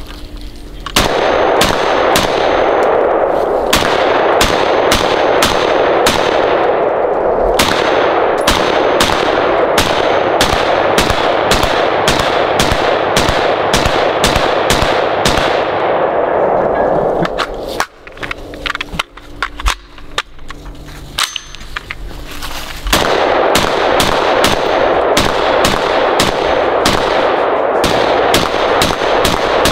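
Springfield Hellion bullpup rifle in .223 firing a long string of quick semi-automatic shots, about two to three a second, with the firing thinning out for a few seconds past the middle before picking up again.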